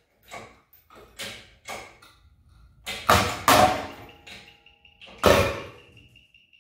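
A lure pull-out test: a series of knocks and cracks as a twist wire is loaded in a wooden fishing lure. The loudest crack comes about five seconds in, with a short metallic ring, as the wire rips out of the wood at about 135 pounds.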